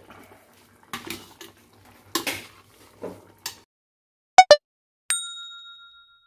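A metal spoon scraping and clinking against a stainless steel pot while stirring a thick stew, then a subscribe-button sound effect: two loud quick clicks followed by a bell ding that rings out for about a second.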